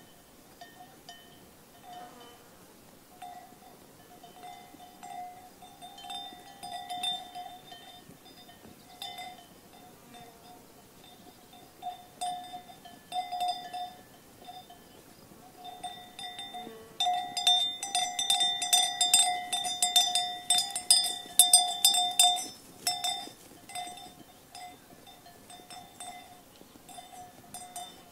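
Sheep bells clanking irregularly as the flock grazes, busiest and loudest about two-thirds of the way through.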